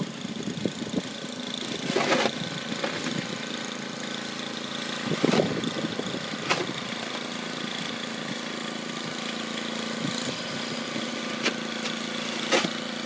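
A small engine running steadily at an even pitch, with a few brief knocks and scrapes over it.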